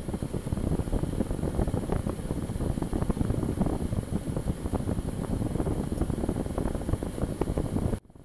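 Steady noise of a car driving on a wet road, picked up inside the car by the dash cam: a dense, crackling rumble with a thin high hiss over it. It drops out briefly near the end at a cut.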